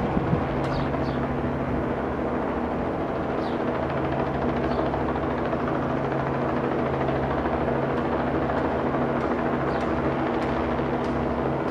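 Steady low engine drone of a few even tones, with a few faint short chirps high above it.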